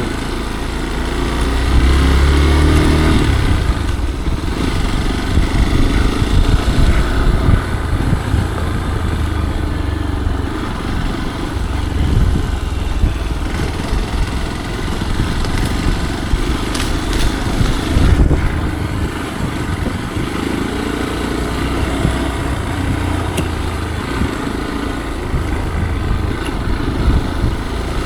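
Motorcycle engine running while the bike is ridden along an off-road trail, its heavy low rumble swelling and easing as the throttle changes.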